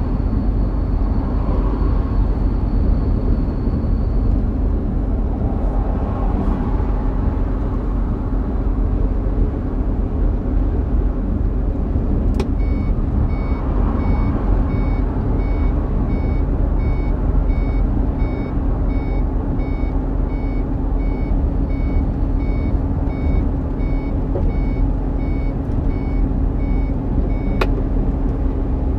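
Inside a moving Iveco Eurocargo lorry's cab: the diesel engine drones steadily under road noise. About twelve seconds in, a click starts a regular electronic beeping, roughly one and a half beeps a second, which stops with another click near the end.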